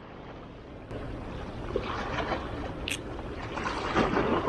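Hands rustling and handling gear as a fabric glove is pulled on and a plastic tackle box is handled, with one sharp click about three seconds in. Under it runs a steady wash of sea water and wind.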